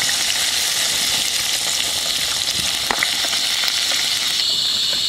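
Tomatoes, shallots and chillies sizzling in hot oil in a small camping pan, stirred with a plastic spatula that clicks against the pan a few times. They are being fried until they wilt, the stage before they are pounded into sambal terasi.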